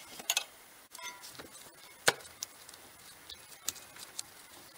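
Metal hand tools clicking and clinking against a car's front brake caliper as its bolts are fitted. There are scattered light clicks, with the loudest clink about two seconds in.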